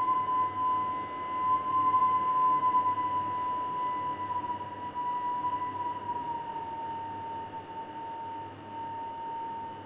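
Air whistling through the gaps of the sealed waiting-room doors of a tunnel station after an express has passed: one long, eerie "hyuu" whistle that rises a little at first, then slowly sinks in pitch and fades. Under it runs the steady hum of the waiting room's ventilation fan.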